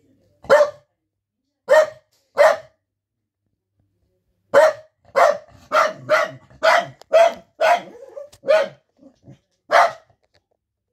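A dog barking in short, separate barks: three spaced barks, then a faster run of about ten. This is alert barking at visitors.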